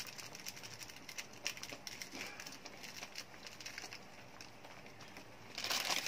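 Faint crackling and ticking from a wok of spice sauce and chicken simmering on a gas stove, with a short louder rustle near the end.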